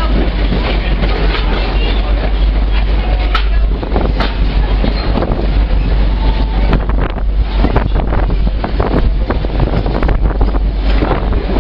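A passenger train rolling along, heard from its open-air car, with wind buffeting the microphone and scattered knocks from the wheels and car.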